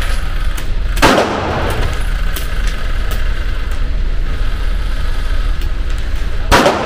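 Two handgun shots fired in an indoor shooting range, about five and a half seconds apart, each followed by a short echo. Fainter sharp cracks come between them over a steady low rumble.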